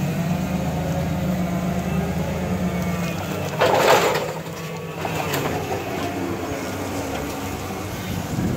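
Hyster forklift engine running steadily as the truck drives, with a short, loud burst of hiss about four seconds in, after which the engine runs a little quieter.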